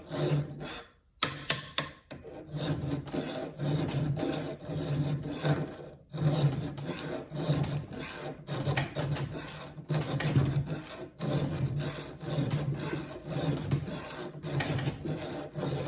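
Hand file rasping on the steel side plate of a chainsaw chain cutter: repeated back-and-forth strokes, about one a second, with a couple of sharp clicks about a second in.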